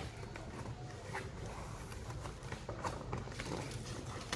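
Quiet handling of a cardboard parcel: a few faint scattered taps and scrapes from hands on the box, over a low steady hum.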